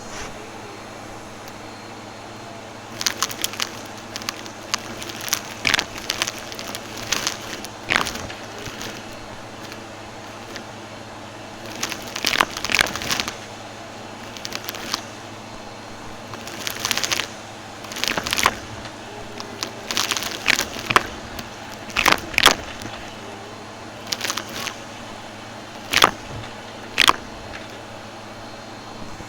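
Vacuum cleaner running steadily, crackling and crunching in bursts every few seconds as it sucks up dry, crunchy debris.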